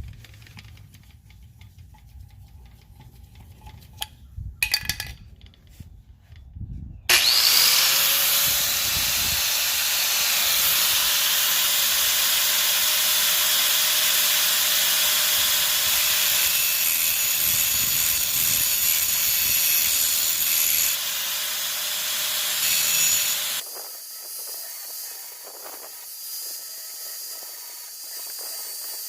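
A few handling clicks, then a power grinder spins up about seven seconds in and grinds steadily and loudly on the head of a rear brake caliper banjo bolt for about sixteen seconds, cutting it down so it clears 15-inch wheels. Near the end the sound falls to a quieter, thinner hiss.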